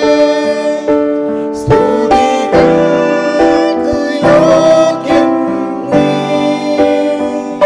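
Live worship song: several voices singing together into microphones, accompanied by strummed acoustic guitar and sustained chords.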